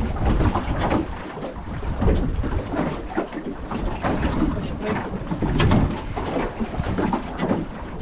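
Wind buffeting the microphone aboard a small boat at sea, gusting up and down, with water noise around the hull.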